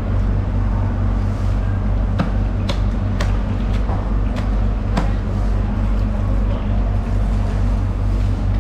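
A steady low machine rumble runs throughout. About six sharp clicks come between two and five seconds in.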